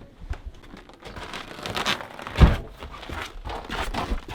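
Footsteps crunching on cold snow amid the rustle of winter clothing, with one heavy thump about two and a half seconds in.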